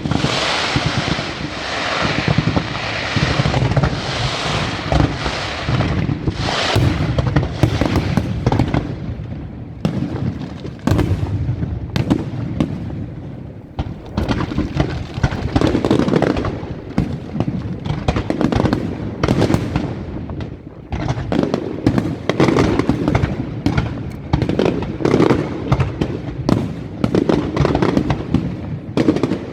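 Fireworks display: a continuous barrage of shell bursts and crackling. It starts suddenly and grows into dense, rapid cracks through the second half.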